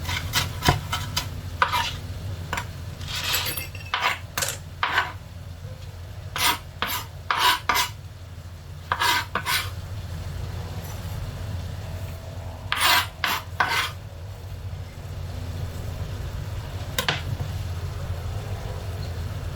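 Spoon stirring mussels in their shells in a pan as they cook in the liquid they have released: clusters of short scraping and clinking strokes against the pan, with a quieter stretch about three-quarters of the way through, over a steady low hum.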